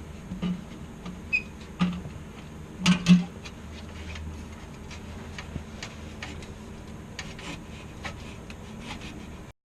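Scattered metallic clicks and knocks from fitting the exhaust hardware and hangers, a few louder knocks in the first three seconds and lighter ticks after, over a steady fan hum.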